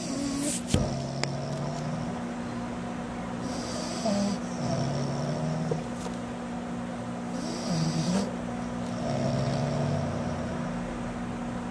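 A sleeping pet snoring in slow, regular breaths, a hissing breath roughly every four seconds alternating with a low snore. A steady low hum runs underneath, and there is a sharp click a little under a second in.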